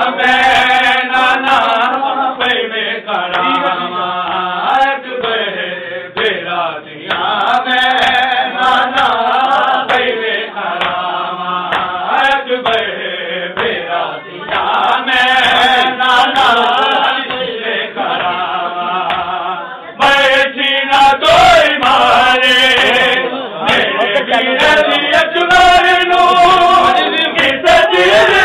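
Group of men chanting a noha, a Shia lament, together, with frequent slaps of hands on bare chests (matam) keeping the beat.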